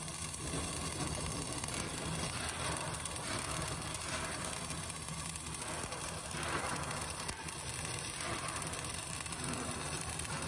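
CO2 MIG welding arc crackling and buzzing steadily as a vertical-up (3G) weld is run. This is the second pass, laid with a zigzag weave at a slightly raised current and wire-feed setting.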